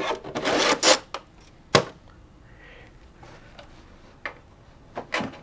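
3D-printed PLA model-jet parts being handled: a brief rubbing scrape at the start, one sharp plastic click just under two seconds in, then a few lighter knocks near the end.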